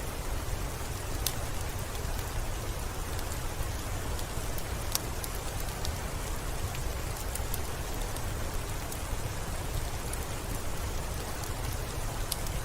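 Steady soft rain hiss with a low rumble, dotted with scattered sharp crackles from a wood fire in a fireplace.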